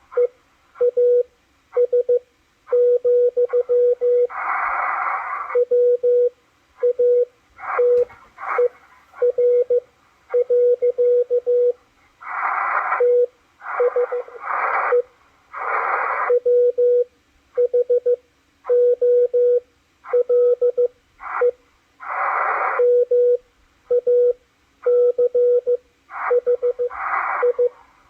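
Morse code from W1AW received on a Malachite DSP SDR receiver: a steady mid-pitched tone keyed on and off in dots and dashes. It is broken every few seconds by louder bursts of rushing noise.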